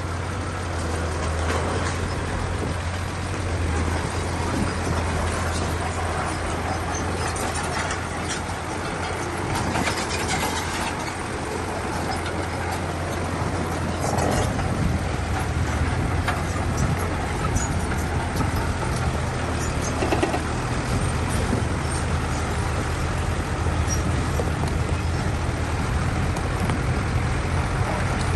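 Bulldozer's diesel engine running steadily under load with a deep hum, mixed with the grinding noise of pushing stone fill and a few clanks.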